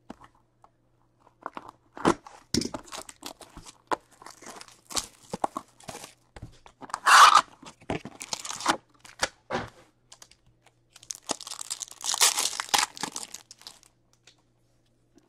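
Sealed trading-card box being cut open with a box cutter, with scattered scratches and clicks, then a loud rip as the cardboard lid and its wrap are torn open about seven seconds in. A longer crinkling tear follows as a foil card pack is ripped open near the end.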